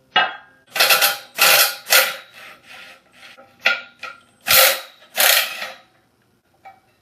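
Metal machine parts being handled: a run of about eight short clanks and scrapes, a few with a brief metallic ring.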